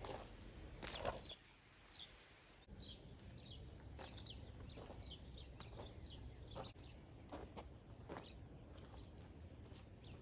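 Small birds chirping over and over, with a low rumble of wind on the microphone and a few short knocks.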